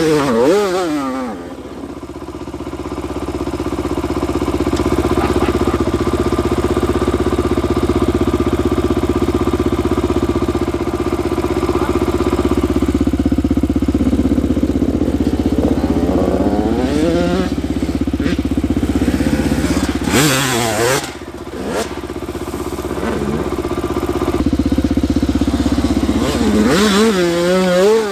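Dirt bike engines running steadily, with the revs rising and falling several times as they are throttled up and down.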